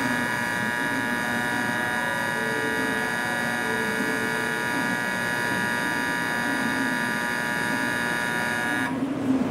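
Station platform departure bell for a Shinkansen ringing as one steady, buzzy electronic tone. It cuts off suddenly near the end, the signal that the train is about to close its doors and leave.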